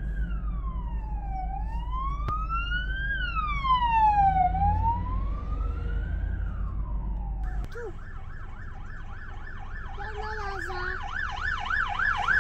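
A police car's siren wailing, rising and falling slowly about every three seconds, over a low car rumble. After a cut about eight seconds in, an approaching ambulance's fast yelping siren takes over, growing louder toward the end.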